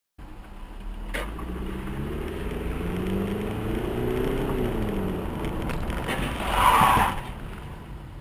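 Car engine and road noise, the engine's pitch rising and then falling, then a loud rough burst of noise lasting about half a second about six and a half seconds in, typical of a road collision.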